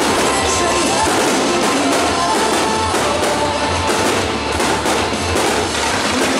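Music playing loudly over a fireworks display, with rapid, densely packed pops and bangs of fireworks bursting.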